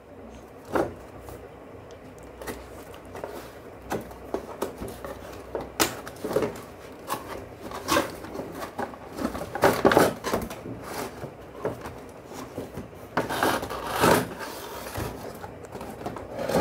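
A cardboard toy box being opened by hand: irregular clicks, taps and scrapes of the cardboard flaps and inner tray, with bursts of rustling from the packaging, loudest about three quarters of the way through.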